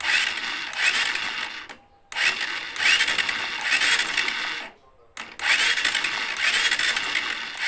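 Honda TMX 150 Supremo engine being cranked over with its spark plug removed and grounded for a spark test, spinning without firing in three spells of about two to three seconds each with short pauses between.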